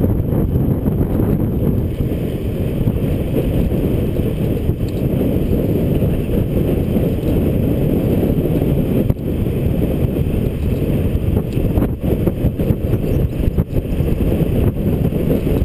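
Wind buffeting the action-camera microphone while a folding bicycle coasts fast downhill. The result is a steady, heavy low rumble that hardly changes.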